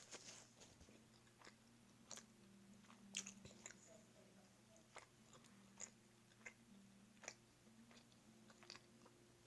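Faint close-up mouth sounds of a person chewing a sausage dog: soft, irregular wet clicks and smacks, over a faint steady low hum.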